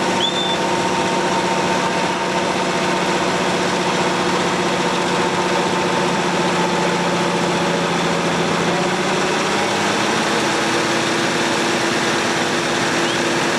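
McCormick MTX tractor's diesel engine running steadily under heavy load as it pulls a tractor-pull weight sled through sand.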